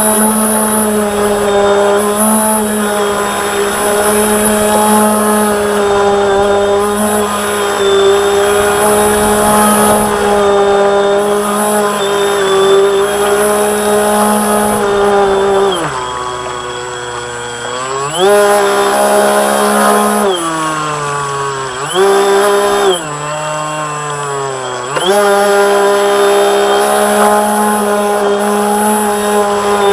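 Water-cooled brushless electric motor of a radio-controlled model boat whining at a steady pitch, with a thin high whine above it. Around the middle the pitch dives and climbs back three times as the throttle falls off and recovers: the autopilot's cruise throttle is set too low, so the boat virtually stops.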